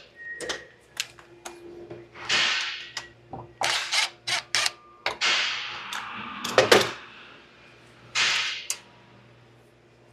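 Hand tools being handled at a tool tray: a run of sharp clicks and clinks and short rustling swishes, with a louder clank about two-thirds of the way in.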